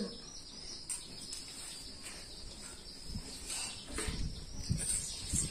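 Quiet rural background with a steady high-pitched insect trill, and a few soft low knocks in the second half.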